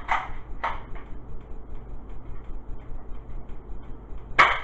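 Nerf toy blaster's plastic mechanism: two clicks near the start and a louder sharp snap near the end, over a steady low hum.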